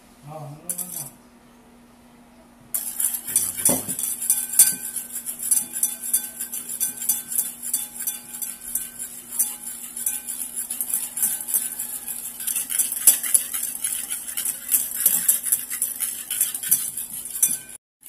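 Wire balloon whisk beating a runny instant coffee, sugar and water mixture in a ceramic bowl by hand, a fast steady clicking and scraping against the bowl that starts about three seconds in. The mixture is partway to being whipped into dalgona foam.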